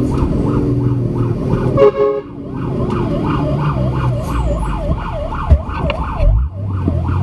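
Fire truck's siren on a fast yelp, rising and falling about three times a second, heard from inside the cab over the truck's engine running. There is a short blare about two seconds in and two thumps near the end.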